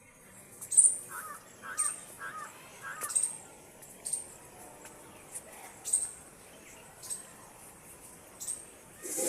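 Bird calls: a sharp, very high chirp repeating about once a second, with a run of four short lower calls starting about a second in.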